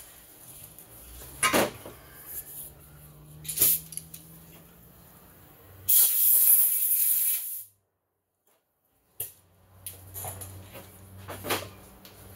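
Compressed air hissing from a blow nozzle for about two seconds, blowing out the body of a Tillotson HL diaphragm carburetor during its rebuild; the hiss cuts off suddenly. A few knocks and clicks of parts being handled come before it.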